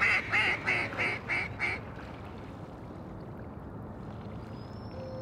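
A run of loud, evenly spaced duck quacks, about three or four a second, each weaker than the last, ending about two seconds in. Near the end a faint, falling call-like tone can be heard.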